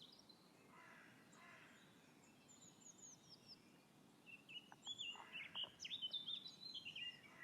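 Birds chirping and singing over faint outdoor background noise. A few high chirps come about two and a half seconds in, then a denser run of quick, sweeping chirps fills the second half.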